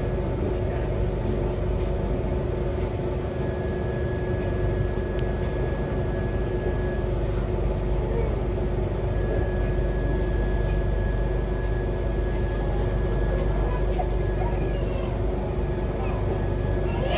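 Passenger train coaches rolling past on the adjacent track: a steady low rumble with a constant high-pitched tone over it.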